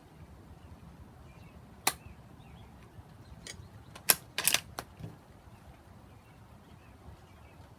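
A .270 rifle misfiring: a sharp click about two seconds in as the firing pin falls on a cartridge that doesn't go off, with no shot. About two seconds later comes a quick series of metallic clicks and clacks as the action is worked to clear the dud round.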